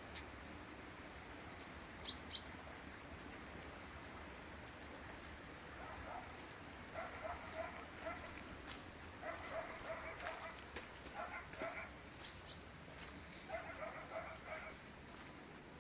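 Quiet outdoor village ambience: two short high chirps about two seconds in, then from about six seconds on repeated bursts of distant animal calls.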